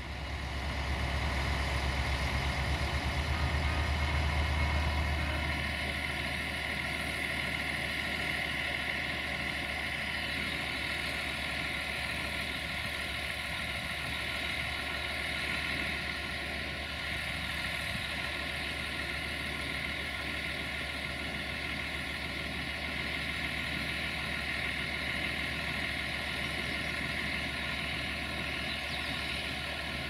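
Sulzer diesel engine of a CFR 060-DA (LDE2100) locomotive running steadily at low power as the locomotive creeps slowly along the station tracks. It is somewhat louder for the first five seconds or so, then holds an even level.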